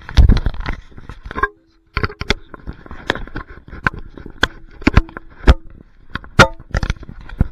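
Irregular clicks, knocks and rubbing very close to a body-worn camera's microphone, with heavy thumps in the first half second and a faint steady hum underneath from about a second and a half in.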